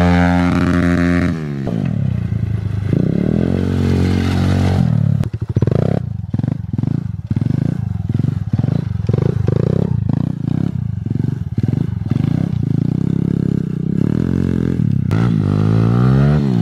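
Kawasaki pit bike engine being ridden hard: it drops off about a second and a half in, revs up again, then is blipped on and off about twice a second for several seconds, with a final climb and fall in revs near the end.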